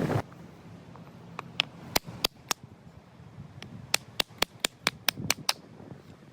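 A dozen or so sharp, dry cracks of firewood, irregularly spaced and coming in quick clusters over about four seconds.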